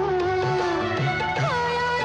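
Bollywood film song music: a held melody that slides and bends in pitch, over a steady low accompaniment.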